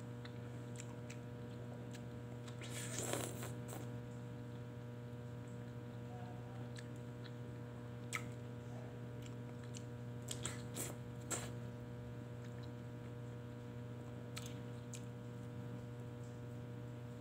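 Faint sucking and biting on a frozen ice pop over a steady low hum, with a short slurp about three seconds in and a few soft clicks later.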